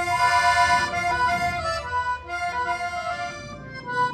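Accordion played solo: held reedy chords and melody notes changing about every half second, in a traditional forró-style tune.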